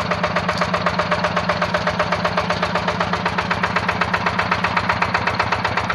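Yanmar single-cylinder diesel engine on a G1000 hand tractor running steadily, with about nine firing beats a second.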